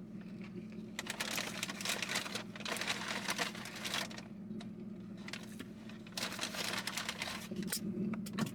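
Paper fast-food bag and wrappers rustling and crinkling in irregular bursts as food is handled, over a steady low hum.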